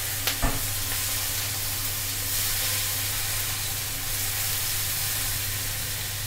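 Sliced onions sizzling steadily in hot oil in a steel kadhai as a slotted spatula stirs them, with one sharp knock of the spatula against the pan about half a second in.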